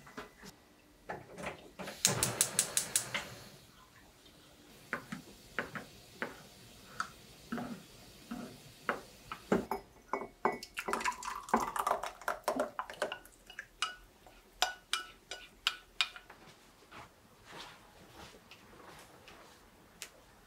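A metal spoon clinking and scraping against a ceramic milk pan and mug as warm milk is stirred and poured. A rapid run of clicks comes about two seconds in, and the clinks thin out near the end.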